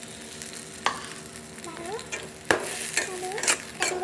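Metal spatula stirring and scraping genjer greens in a wok, over a steady sizzle from the greens cooking in oil with a splash of water. Sharp knocks of the spatula against the pan come about a second in and several times in the second half, with a few short squeaks as it scrapes.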